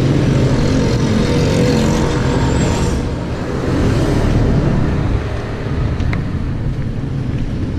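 Road traffic: motor vehicles passing close by with engine and tyre noise, loudest in the first few seconds and then easing.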